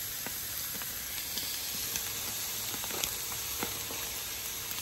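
Chicken searing on a hot charcoal grill grate: a steady sizzle with scattered sharp crackles and pops.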